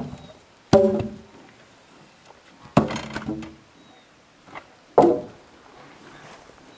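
Long wooden poles dropping and clattering against one another and the ground as they are unloaded from a pack horse. Four loud knocks, each ringing briefly, come at the start, just under a second in, near three seconds and about five seconds in.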